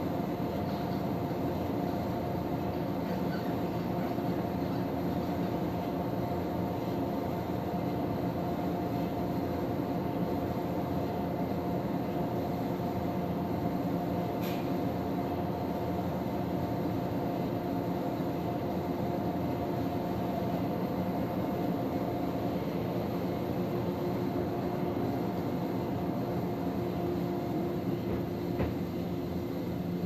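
Steady hum of a stationary electric train heard from inside its cab, with several constant tones from its onboard equipment. There is a faint tick about halfway through and another near the end.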